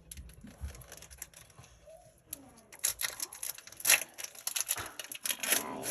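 Foil booster-pack wrapper crinkling and crackling as it is handled and torn open, in scattered bursts of rustles and clicks that are busiest a few seconds in and again near the end.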